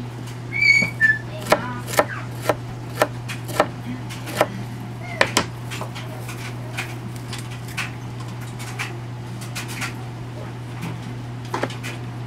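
Knife chopping broccoli on a plastic cutting board: sharp knocks of the blade on the board about twice a second for a few seconds, then only light taps. A short high whistled note comes near the start, over a steady low hum.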